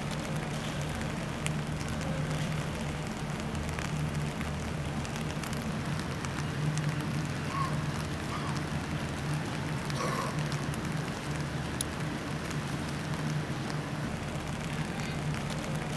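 Steady rain falling on a wet wooden boardwalk, with scattered drop ticks and a low, steady hum underneath.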